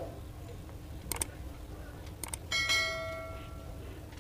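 Two pairs of light clicks, then a single bell-like electronic chime that rings out and fades over about a second, as a phone's Bluetooth settings are worked to pair a neckband headphone.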